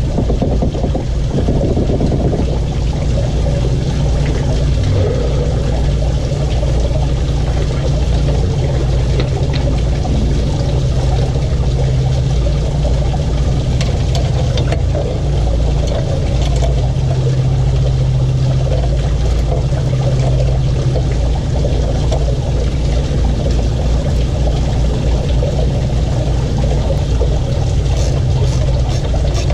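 A steady, loud low drone of a running motor, unchanging throughout. Near the end, a short run of light clicks from hand tools working the motor mount bolts.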